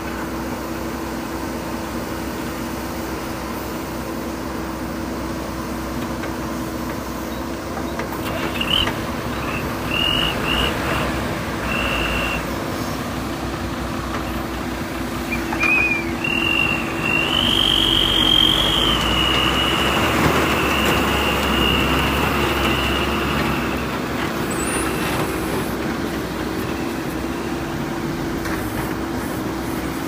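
JCB backhoe loader's diesel engine running steadily with a constant drone, alongside a tipper truck's diesel engine. A high whine comes in short bits about a third of the way in, then holds for several seconds around the middle while the engine noise grows louder.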